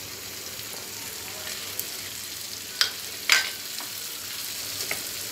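Green mango pieces sizzling in hot mustard oil in a pan, as a wooden spatula scrapes mustard paste in and stirs. A few sharp knocks and scrapes of the spatula cut through the steady sizzle, the loudest about three seconds in.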